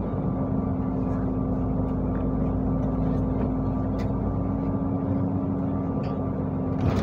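City bus heard from inside while driving: steady engine and road noise with a constant low hum, and a few light clicks or rattles.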